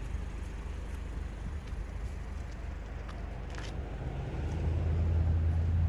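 Car driving: a steady low engine and road rumble that grows louder about four seconds in.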